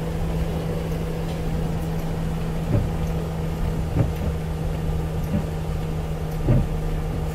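Crown Super Coach bus on the move, its Cummins Big Cam turbo diesel inline-six running with a steady drone. A few short knocks come through, about a third of the way in, about halfway, and near the end.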